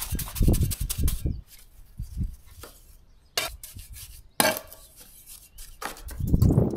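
Steel trowel scraping and pressing cement mortar into the gap under a door threshold: a series of short scrapes and taps, with low thumps in about the first second and again near the end.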